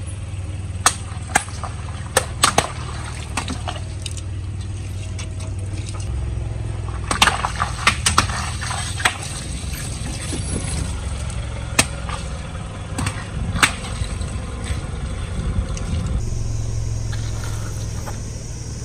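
A car's engine running low and steady while its tyre crushes things, giving scattered sharp cracks and crunches, thickest from about seven to nine seconds in.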